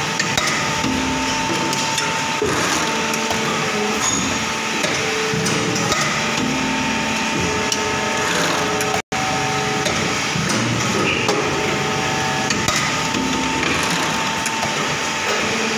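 Plastic injection moulding machine running through its cycle: a steady, loud machine noise with short whining tones that start and stop every second or two, and scattered metallic clicks and clanks.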